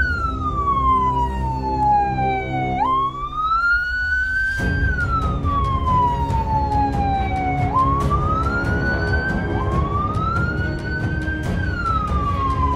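Electronic siren wailing, each cycle rising and then falling slowly, over background music with a steady beat.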